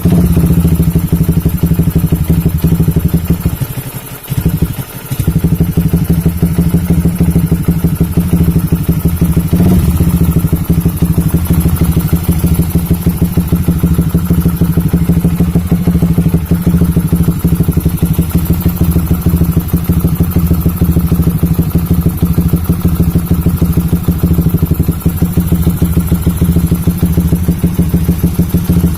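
Yamaha Vixion's single-cylinder four-stroke engine running steadily, which the owner presents for its strange noises. The engine sound drops away briefly twice about four to five seconds in.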